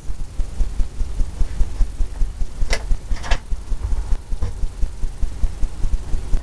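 Oil brush scrubbing and dabbing on a stretched canvas on an easel, a fast uneven low thumping of about three to five beats a second, with a few sharper clicks in the middle.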